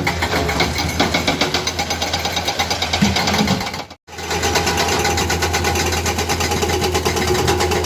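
Excavator-mounted hydraulic breaker hammering in a rapid, even stream of blows over the running diesel engine, with a brief break about four seconds in.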